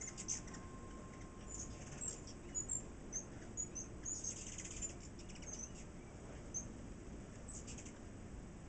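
A flock of ruby-throated hummingbirds chipping and chattering as they compete at feeders: many short, high, squeaky chips scattered throughout, with a few quick rattling chatter runs, one right at the start, one about four seconds in and one near the end.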